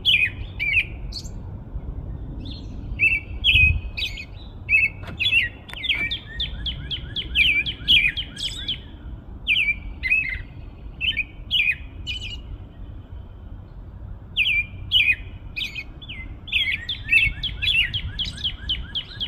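Birds chirping in quick runs of short, sharp notes, with a pause of a couple of seconds about two-thirds of the way through.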